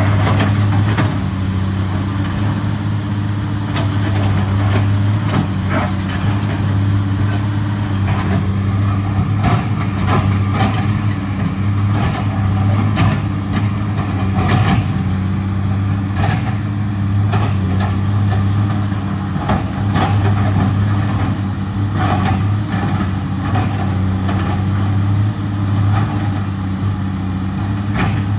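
Komatsu PC210LC excavator's diesel engine running steadily under load, with irregular knocks and clatter of rock as the bucket pushes loose stone over the slope.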